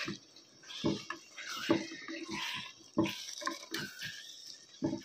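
Spatula stirring a thick mixture of part-boiled urad dal and chicken in masala in a pressure cooker pot: about half a dozen wet, squelching strokes with some scraping against the pot, at an irregular pace.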